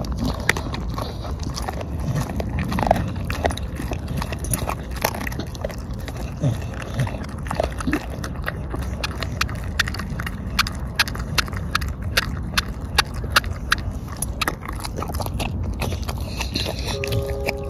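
Bulldog-type dog chewing and gnawing a whole feathered black chicken carcass: wet mouthing with irregular crunches and sharp cracks, coming thicker and louder in the second half.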